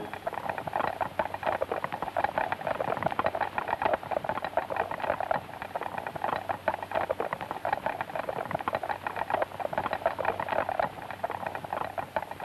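Hooves of a column of many cavalry horses clattering on the ground, a dense, uneven patter of overlapping hoofbeats.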